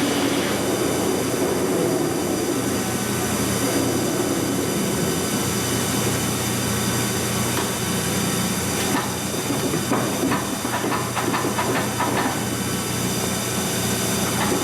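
Big Monarch engine lathe running under power, its geared headstock giving a steady whine over hiss as a carbide insert works on a hardened tractor pinion shaft. Between about 9 and 12 seconds in comes a run of quick ticks, the interrupted cut chattering against the insert.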